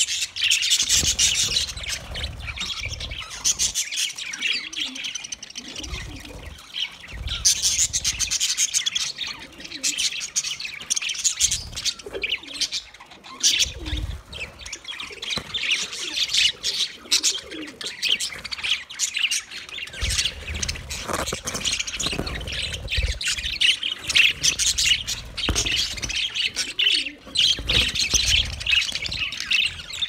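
A flock of budgerigars chattering: many overlapping quick chirps and warbles.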